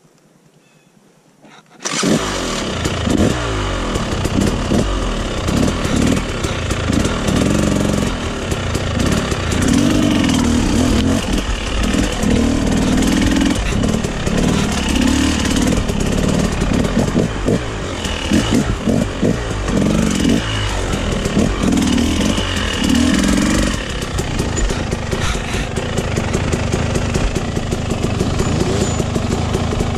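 Dirt bike engine running, revving up and down over and over as it rides the trail, then holding steadier near the end. It comes in loud and suddenly about two seconds in.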